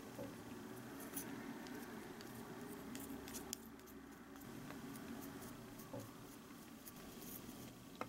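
Faint light clinks, taps and scratches of a small glass bowl and a wooden stick as matcha powder is tipped onto flour and stirred in, over a low steady hum.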